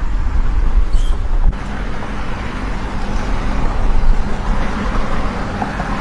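Steady outdoor background noise: a low rumble with hiss over it, changing abruptly about a second and a half in.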